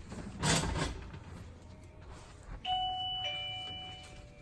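A short rustle of movement about half a second in, then a two-tone ding-dong chime, the second note lower, ringing on and fading slowly.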